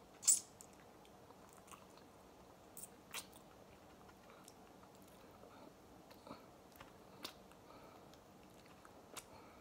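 Snow crab leg shell cracking and snapping as it is picked apart by hand, heard as scattered sharp clicks, the loudest just after the start, with quiet chewing between.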